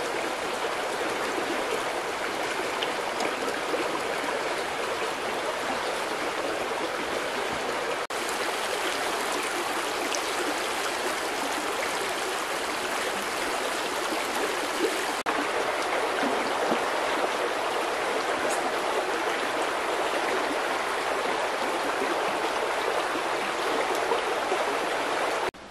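Shallow mountain stream flowing steadily over rocks, an even rushing and babbling of water.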